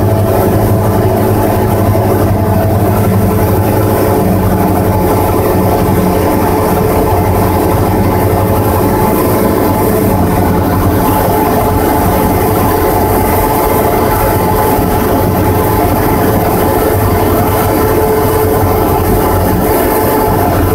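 Cessna 172's piston engine and propeller running at a steady, even drone on final approach, heard from inside the cockpit.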